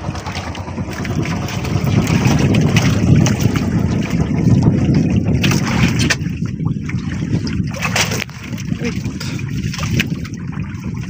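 Wind blowing across the microphone over sea water lapping against a small boat's hull: a steady, loud rushing noise that eases a little about eight seconds in.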